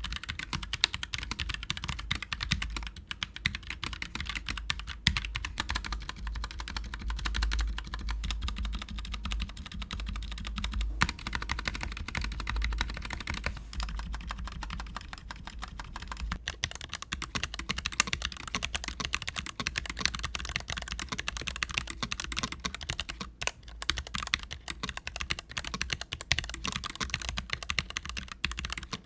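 Continuous fast typing on a mechanical keyboard fitted with tactile switches and GMK keycaps: a steady stream of key clacks that barely pauses.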